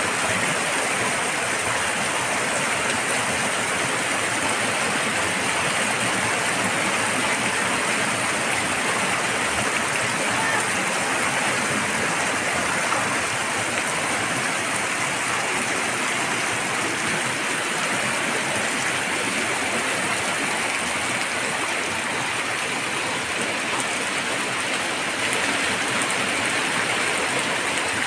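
Heavy rain falling onto a flooded street, mixed with floodwater running along it: a steady, unbroken rush of rain and flowing water.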